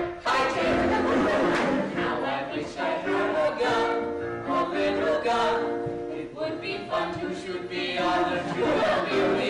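A small group of voices singing together, holding long notes phrase after phrase.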